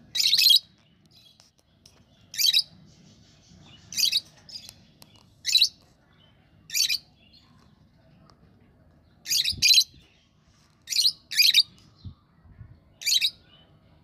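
Pet budgerigars giving short, sharp chirps: about ten loud calls, single or in quick pairs, a second or two apart.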